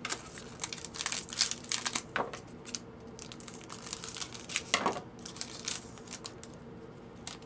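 Shiny foil trading-card pack wrappers crinkling and rustling as a pack is cut open with scissors and the cards are pulled out and handled; irregular crackles, busiest in the first two-thirds and thinning out near the end.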